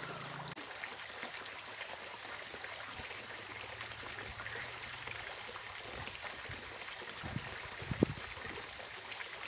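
Shallow rocky mountain stream flowing steadily over a small riffle, with a short sharp knock about eight seconds in.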